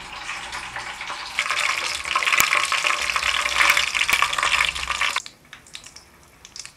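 Pancake batter sizzling in hot oil in a frying pan as it is ladled in. The hiss grows louder about a second and a half in and stops suddenly about five seconds in.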